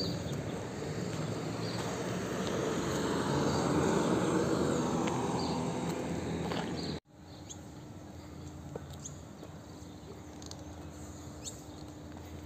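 A motor vehicle passes on the street, its noise swelling to a peak about four seconds in and then fading. After an abrupt cut about seven seconds in, a quieter outdoor background follows, with a steady low hum and scattered bird chirps.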